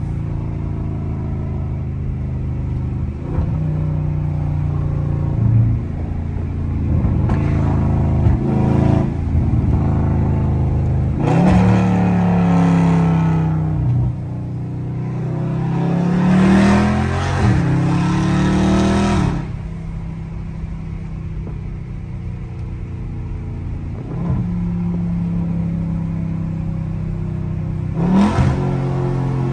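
Straight-piped, catless 6.4-litre 392 HEMI V8 of a Dodge Charger Scat Pack, heard from the driver's seat with all four windows down. The engine runs under light throttle and its note rises and falls as the driver gets on and off the gas. There is a loud falling note about a third of the way in, a rising pull a little past halfway that breaks once and then drops away suddenly, and a quick rise near the end.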